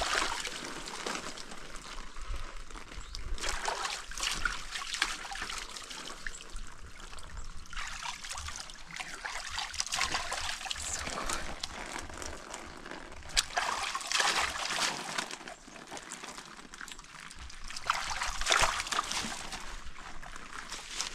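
Bathwater scooped by hand from a basin and splashed over the body while rinsing off, trickling and dripping in repeated irregular bursts.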